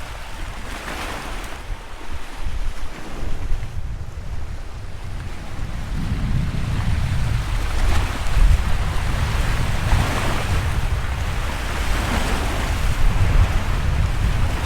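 Sea waves breaking and washing ashore, the wash swelling and fading again every couple of seconds, over a steady low rumble of wind on the microphone.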